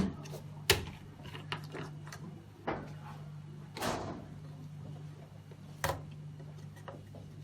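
A few sharp clicks and knocks, with a short rustle about four seconds in, from objects being handled, over a steady low electrical hum.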